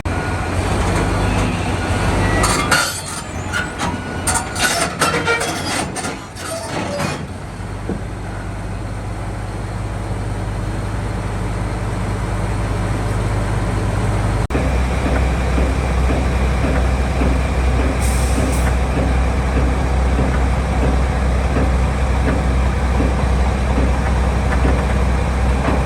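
Heavy diesel engine running steadily, with a few seconds of sharp clattering and hissing noise a few seconds in. About halfway through, the engine note drops lower and grows louder.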